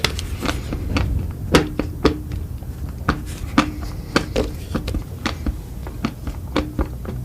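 Close-miked eating: chewing and mouth sounds, a run of irregular sharp clicks and smacks, several a second, over a low steady rumble.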